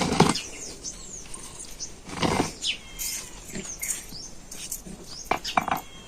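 Small birds chirping and whistling, with a few brief splashes of water as freshly picked mint and carrots are washed by hand.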